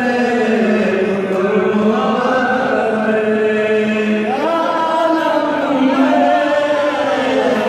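A man chanting a Sufi tarana, a devotional song, in long held notes, the melody stepping up in pitch a little past halfway.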